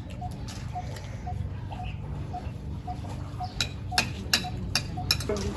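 Outdoor ambience during a buffet meal: a steady low rumble, a faint short note repeating about twice a second, and a few sharp clinks of plates and cutlery in the second half.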